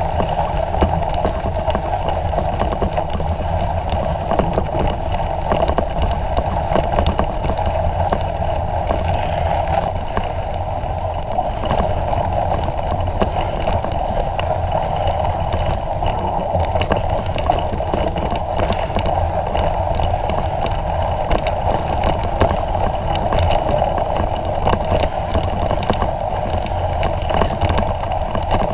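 Surly Long Haul Trucker touring bike being ridden through snow: steady rolling noise from the tyres pushing through the snow, with many small crackles, over a low rumble of wind on the microphone.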